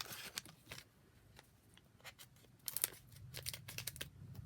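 Small silver foil blind-bag packet being opened by hand, crinkling with scattered sharp clicks and rustles, and a quick cluster of clicks a little under three seconds in.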